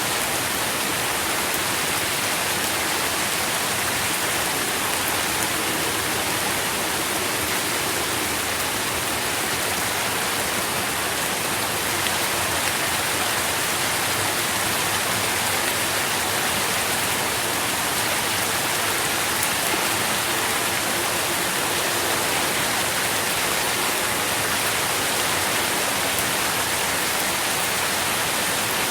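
Steady rain falling, an even hiss of many drops with faint fine patters on leaves and ground.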